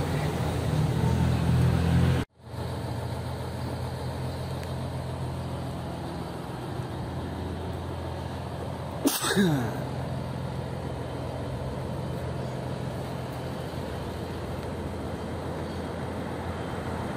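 Scania K113CL coach's diesel engine idling with a steady low hum, fuller while heard from inside the bus. The sound cuts out abruptly about two seconds in and returns as the same hum heard from outside. About nine seconds in there is a single short sharp sound with a falling tone.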